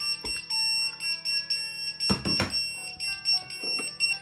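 Electronic alert tones from a pager receiving messages: a steady shrill beep with many short notes at changing pitches over it. A brief rustle of cardboard packaging about two seconds in.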